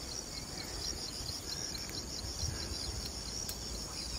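Insects chirping in a steady, evenly pulsed high trill, several pulses a second, with a low rumble underneath.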